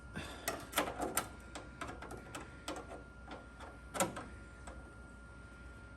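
Irregular light metallic clicks and taps, about fifteen, the loudest about four seconds in: sheet metal and tools being handled while a patch panel is set in place for tack welding.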